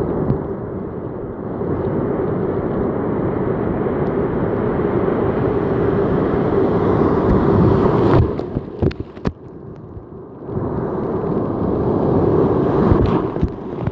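Surf breaking and washing through the shallows, with wind rumbling on the microphone. About eight seconds in, the sound drops to a muffled lull for about two seconds, broken by a few sharp knocks, then the wash of the surf returns.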